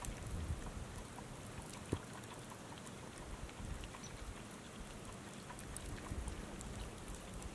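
Faint, steady hiss of wind-driven snow, with scattered soft ticks and one brief knock about two seconds in.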